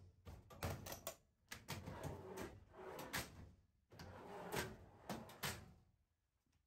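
Stainless steel undercounter cabinet doors and drawers being handled, opened and shut: a series of clicks and knocks in several clusters, with scraping and handling noise between them.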